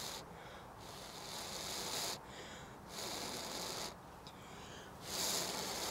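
A person gently blowing on a smouldering cramp ball fungus (King Alfred's cakes) ember: about four long, soft blows with short pauses between, feeding it oxygen to keep it glowing.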